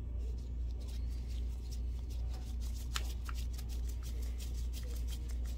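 A screwdriver and gloved hands working a small screw into a projector's metal optical assembly: a run of light, quick clicks and scrapes, with a steady low hum underneath.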